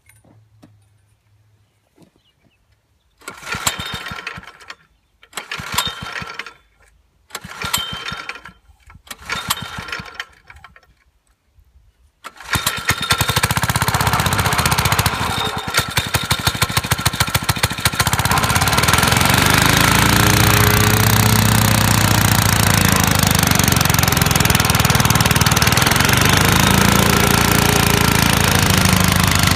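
Old Kohler engine on a Wacker plate tamper being pull-started cold with the choke on: four recoil pulls that don't catch, then it fires on the next pull about twelve seconds in. It runs with a rapid knocking, picks up speed around eighteen seconds, and settles into a loud steady run with the plate pounding.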